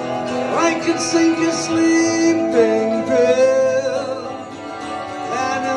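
Live music from an acoustic guitar and an electric guitar, with long held notes and sliding, bending pitches over the strummed chords.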